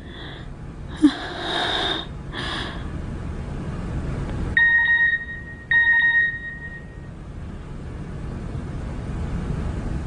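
A basic keypad mobile phone sounds its text-message alert: two electronic beeps about a second apart, each held about a second. Before them come a few breathy sighs from a woman.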